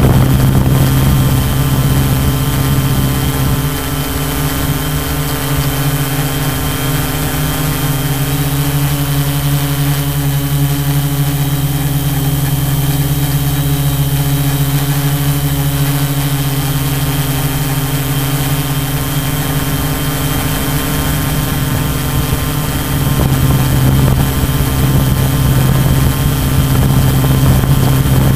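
Tarot 680 Pro hexacopter's six brushless motors and propellers humming steadily in flight, heard close from on board. The hum eases slightly about four seconds in and grows louder again near the end.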